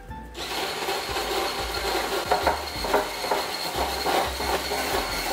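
Hand-held stick blender switched on about a third of a second in and running steadily in a bowl of egg, oil and maple syrup, with a high motor whine over the churning of the liquid.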